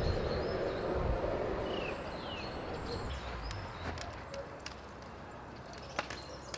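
Handling sounds of raw chicken being threaded onto a metal skewer, with a few sharp clicks, the loudest about a second before the end. A few short bird chirps sound near the middle over quiet outdoor background.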